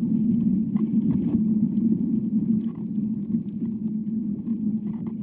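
Inner sound of a tree trunk moved by the wind, picked up by a microphone spiked into the bark: a steady low rumble with faint scattered creaks and ticks, growing quieter over the last two seconds.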